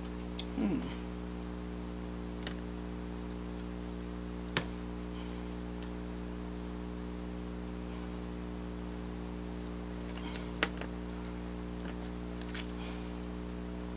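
Steady electrical mains hum under a few small, sharp clicks and taps as a razor blade and quarter-inch EVA foam are handled on a cutting mat, with a brief squeak about a second in.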